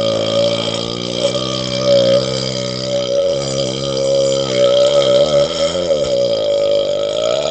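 A man's long, loud belch, one unbroken monster burp held for the whole stretch, its pitch wavering in the middle and cutting off abruptly at the end.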